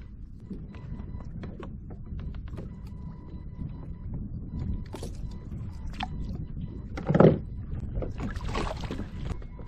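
Scattered knocks and clicks in a fishing kayak as a freshly caught freshwater drum is handled, with one loud low thump about seven seconds in.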